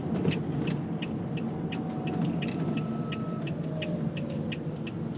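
Steady road and engine rumble inside a moving car, with the turn signal ticking evenly about three times a second.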